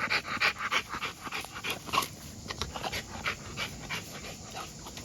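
American bully dog panting hard and fast, about four breaths a second, winded from jumping in the heat. After about two seconds the panting turns sparser and fainter.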